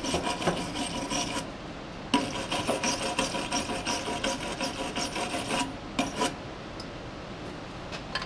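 Gloved hand scrubbing grime off a pneumatic valve's pipe fitting with quick back-and-forth rubbing strokes, cleaning it for a witness mark. There is a short bout at the start, a pause, then a longer bout from about two seconds in to past the middle, and a brief last scrub.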